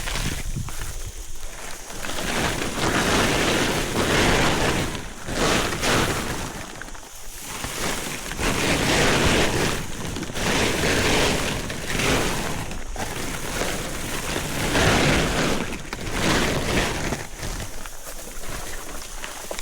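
Leafy cut branches rustling and crackling as they are handled, in irregular swells that come and go every second or two.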